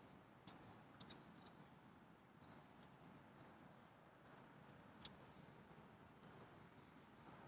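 Near silence with faint, short high bird chirps about once a second and a few light clicks.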